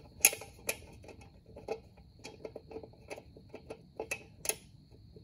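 Irregular light clicks and ticks of screws being handled and threaded by hand back into the rear brake drum cover of a small Yamaha 50 ATV, with a few sharper clicks near the start and about four seconds in.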